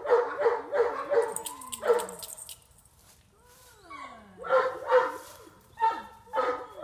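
A dog barking in two bouts: a quick run of about six barks at the start, then three or four more in the second half, with falling whines in between. The barking is a dog's reaction to another dog being brought near.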